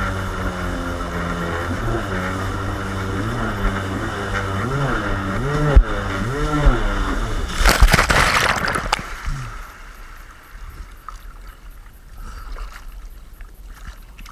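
A small boat's engine running steadily, then revving up and down in several quick swells from about three seconds in. Just past halfway a loud rush of splashing water comes through, after which the engine sound falls away and only water trickling and lapping is left.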